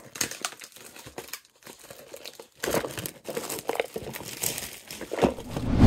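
Clear plastic shrink wrap crinkling and tearing as it is peeled off a cardboard box, in irregular crackles. Near the end comes a louder, deeper rustle and thump.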